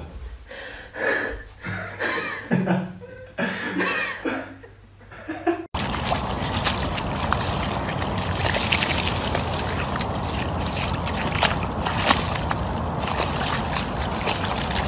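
A cat giving short meows, then about six seconds in a dog rolling and thrashing in a muddy puddle: steady wet splashing and slapping of mud.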